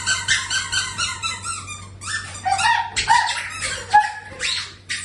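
Rapid, continuous run of short, high, squeaky duck-like quacks, several a second.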